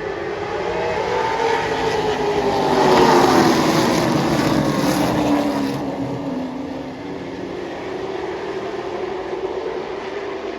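A pack of limited late model stock cars' V8 engines running at speed past the grandstand. The sound swells to its loudest about three seconds in, then drops in pitch and fades as the field goes by.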